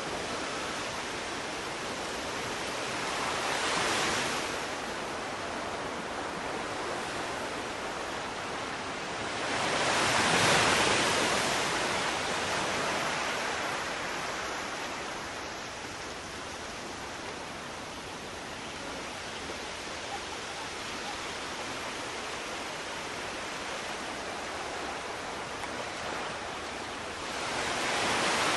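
Sea surf: an even rush of waves washing in, swelling three times, loudest about ten seconds in.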